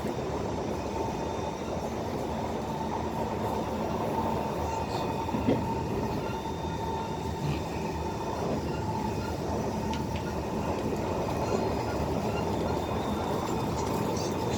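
Interior running noise of an SMRT Kawasaki C151 metro train in motion between stations: a steady rumble with a thin steady whine on top, and a single sharp click about five and a half seconds in.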